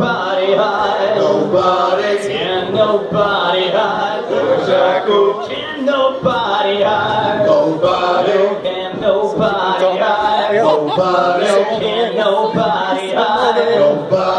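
Live rock band with several male voices singing together in harmony, the voices carrying the song over the instruments.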